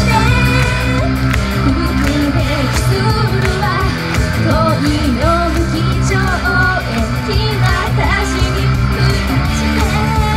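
Live Japanese idol pop song: a young woman sings into a microphone over a loud pre-recorded backing track, amplified through a small club's PA.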